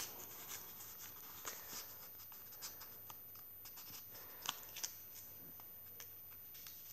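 Paper and card pages of a small handmade journal being turned and handled: faint rustling and light clicks, with two sharper taps about two-thirds of the way through.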